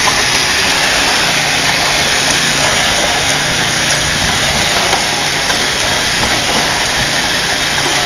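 Homemade spin screed running steadily: its electric drill and angle-grinder motors turn a stainless steel tube over wet concrete, giving a continuous, even machine noise with hiss.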